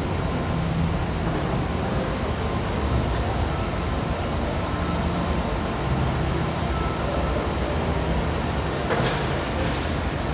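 Steady machinery noise of a textile screen-printing floor: a low hum under a constant hiss. A few short hissing bursts come near the end.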